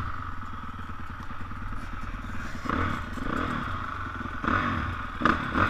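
Dirt bike engine running at part throttle, then revved up and down twice in the second half as the bike rides over rough grass, with a sharp knock a little after five seconds in.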